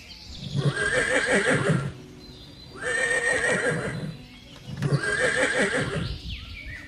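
A horse whinnying three times in a row, each call about a second and a half long with a quavering, shaking pitch.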